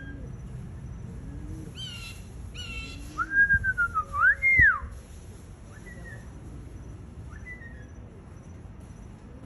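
Mockingbird singing a string of varied whistled phrases. It opens with short slurred notes and a quick run of repeated notes, then gives a loud whistle that slides down and sweeps back up in the middle, and ends with fainter scattered notes.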